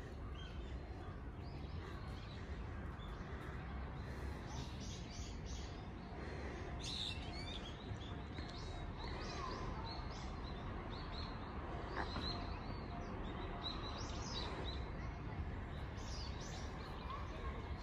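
Small birds chirping and calling in the trees, many short high notes scattered throughout, over a steady low background rumble.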